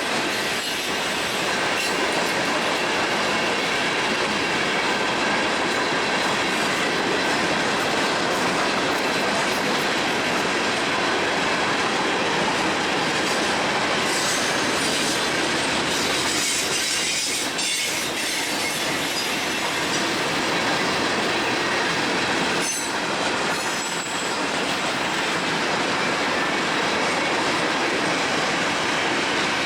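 Freight train cars rolling past, steel wheels on the rails giving a steady rumble and clatter with a faint wheel squeal.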